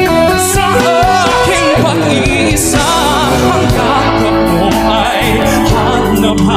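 A man singing a Tagalog ballad into a microphone over instrumental accompaniment, with vibrato on held notes.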